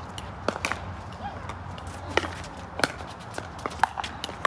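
Pickleball play: several sharp, irregularly spaced pops of paddles striking the ball and the ball bouncing on the court, over a steady low background hum.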